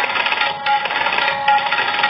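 Tabla played solo in a fast, unbroken run of strokes.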